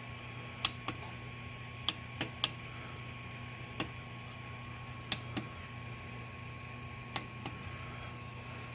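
Stepper motor on a DIY Prusa i3 3D printer ticking in short sharp clicks, often in pairs, at uneven intervals, over a steady electrical hum and a thin high whine. It twitches but does not turn, because a broken wire has cut one of its coils.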